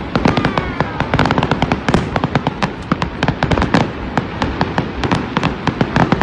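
Fireworks going off in rapid succession: a dense string of sharp bangs and crackles, several a second.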